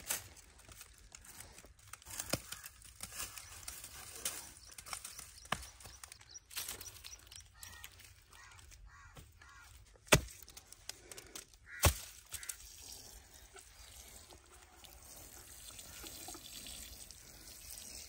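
Hands working dry straw and wet mud along the top of a mud wall: scattered rustling and crackling, with two sharp knocks about two seconds apart, around ten seconds in.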